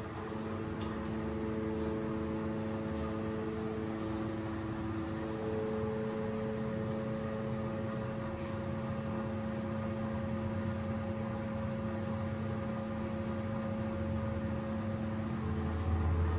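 Steady machine hum of ventilation fans, a few held tones over a low rumble.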